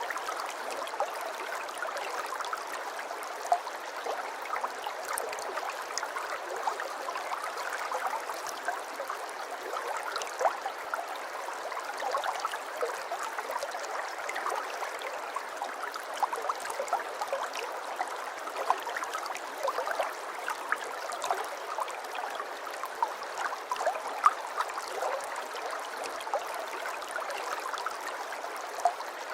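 River water flowing steadily over stones, a continuous babbling with many small splashes and gurgles.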